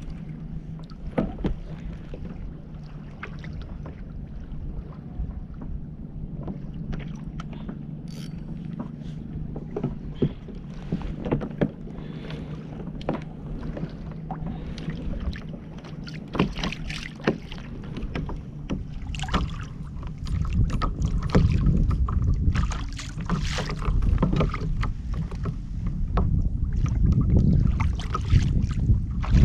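Water lapping and slapping against a fishing kayak's hull, with scattered small knocks and clicks of gear on the boat. A low rumble of wind on the microphone grows stronger about two-thirds of the way through.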